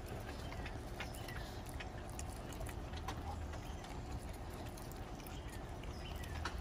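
Pit bull puppy chewing and gnawing a piece of raw chicken held in a hand: irregular clicks and smacks of teeth on meat and bone, over a steady low background rumble.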